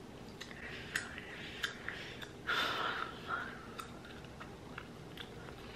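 Faint mouth clicks and a short breath close to the microphone, with scattered small clicks in a quiet small room.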